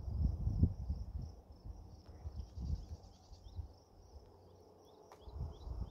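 Insects trilling steadily at a high pitch, with short falling bird chirps, over irregular low rumbling gusts that come and go, strongest near the start and near the end.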